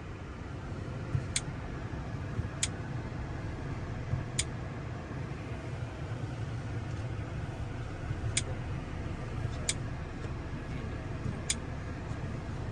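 Steady low vehicle rumble, with six sharp clicks at irregular intervals over it.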